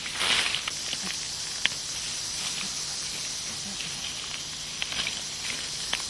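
A crunchy rustle of dry vegetation in the first half second, then a steady high hiss with a few scattered small clicks and ticks.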